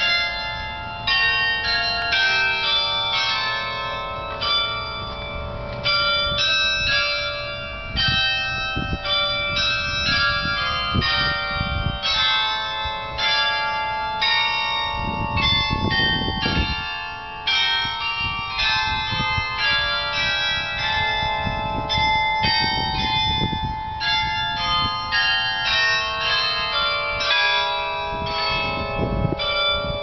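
Church bells in the basilica's bell tower ringing a full peal, many bells struck in quick succession so their ringing tones overlap. Brief low rumbles come through around the middle and near the end.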